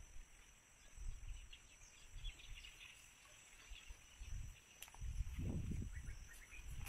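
Quiet rural outdoor ambience: a steady high-pitched insect drone, scattered faint bird chirps, and soft low rumbles that are strongest about five seconds in.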